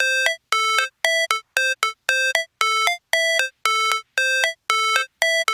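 Electronic intro music: a quick, repeating pattern of short synthesized beeping notes, about two bursts a second, each stepping up in pitch, with silent gaps between them.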